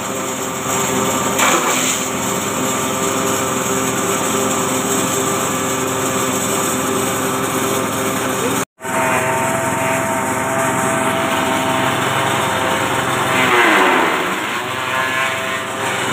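Forage chopper (grass-chopping machine) running at speed with a steady whine while green grass stalks are fed in and cut. A little past halfway the sound cuts out for an instant. Near the end its pitch drops sharply and recovers as a bunch of grass loads it down.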